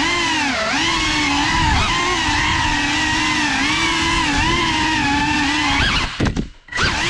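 GEPRC Cinelog35 3.5-inch cinewhoop's brushless motors and propellers whining in flight, heard from the onboard camera, the pitch rising and falling with the throttle. About six seconds in the motors cut out for about half a second and then spin back up.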